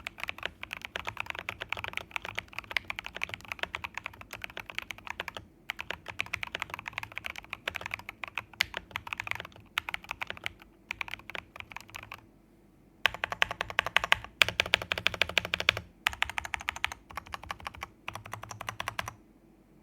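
Typing on a Fantech MAXFIT81 mechanical keyboard with lubed Jwick T1 tactile switches and MT3 Susuwatari keycaps: quick runs of key strokes, one after another. After a short break about two-thirds through comes a louder, denser flurry, and the typing stops shortly before the end.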